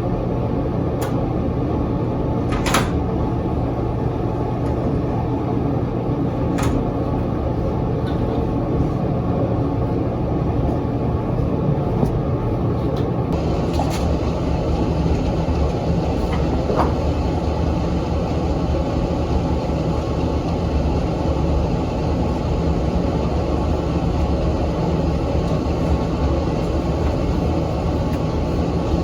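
Steady low rumble of a moving vehicle, with a few light clicks in the first half.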